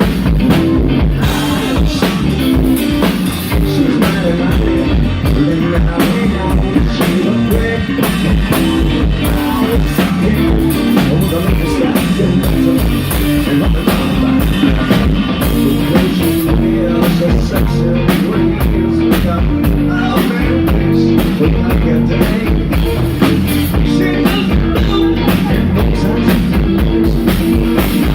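Live rock band playing loudly, with drum kit and electric guitar keeping a steady beat and some singing.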